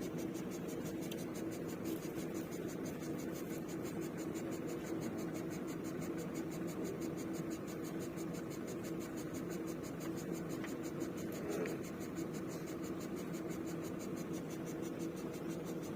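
Steady machine hum with a constant tone and a fast, even ticking higher up, unchanging throughout.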